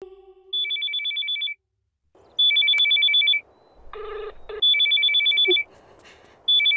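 Telephone ringing: an electronic ringtone, a fast trill between two high tones in rings about a second long, repeating about every two seconds, with a fourth ring starting near the end.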